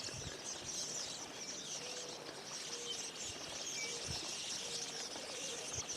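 A crowd of birds calling at once, a dense high-pitched chatter of many short chirps, with a lower short note repeating about once a second and a few soft knocks.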